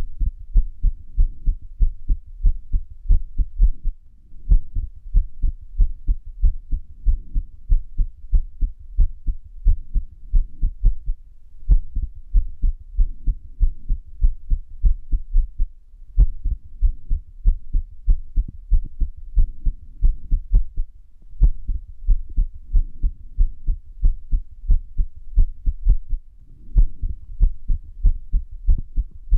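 Human heartbeat with an irregular rhythm (arrhythmia): a run of low, dull thumps whose spacing wavers, broken every several seconds by a longer pause where a beat drops out.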